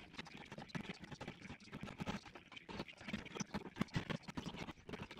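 Metal hand scraper scraping old paint off a wooden stair, a quick uneven run of short scratching strokes.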